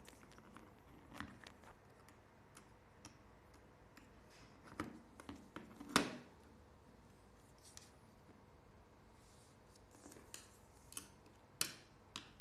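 Faint, scattered clicks and taps of small hard parts being handled, the loudest about six seconds in.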